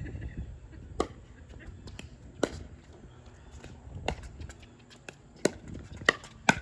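Pickleball rally: sharp pops of the hollow plastic ball off paddles and the court, about six in all, coming roughly once a second and faster near the end.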